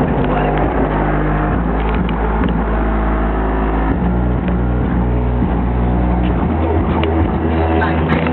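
Heavy bass from a single 12-inch Alpine Type X subwoofer playing a rap track loud in a car, with long low bass notes changing pitch every second or so.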